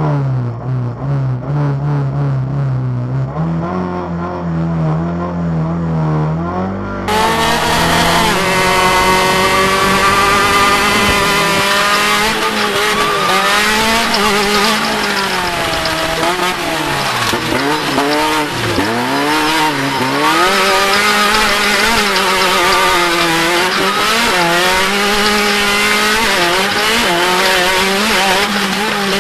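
Off-road race vehicle's engine under hard driving, revving up and down over and over. For the first several seconds it holds a steadier, lower note, then it changes abruptly to rapid rises and falls in pitch.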